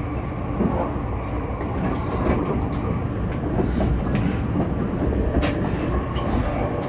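Running noise of an E257 series 0 electric multiple-unit limited express heard from inside the car: a steady low rumble of wheels on rail, with a few sharp clicks as the wheels pass over rail joints.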